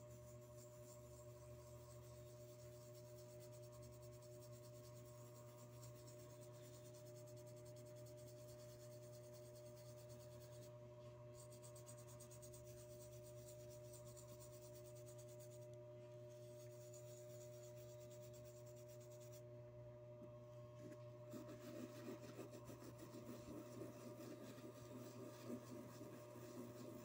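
Toothbrush bristles scrubbing a metal collar pin with metal polish: faint, scratchy rubbing that grows louder and busier in the last five seconds, over a steady low hum.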